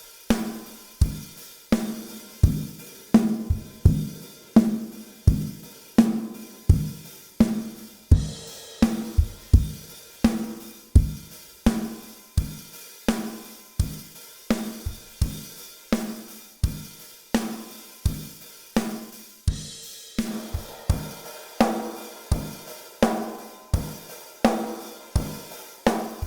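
A recorded drum kit playing a steady beat of kick and snare hits with hi-hat, with cymbal crashes about eight seconds in and again near twenty seconds. It plays through an Avalon 747 optical compressor whose sidechain filter is being adjusted to take the kick out of the detector and favour the snare.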